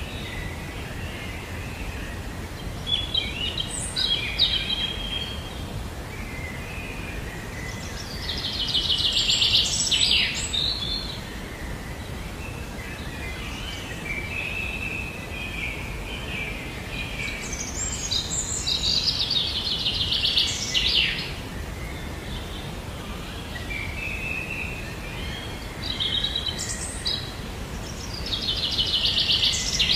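Songbirds singing, with a fast trilling phrase coming back about every ten seconds, over a steady low background hiss.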